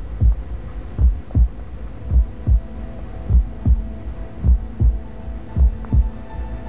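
Heartbeat-style double thumps (lub-dub), six of them a little more than a second apart, over a steady low droning hum in a suspense film score.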